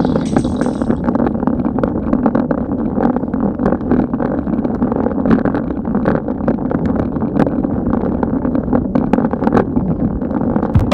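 Wind and road noise picked up by a bike-mounted action camera on a slow, steep bicycle climb: a steady low rumble and buffeting, with frequent small irregular clicks and rattles.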